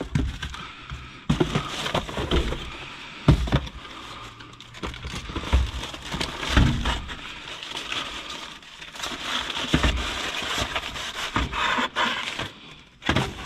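Bagged and packaged food being rummaged through in a dumpster: plastic packaging crinkling and rustling, with irregular knocks and thumps as items are moved.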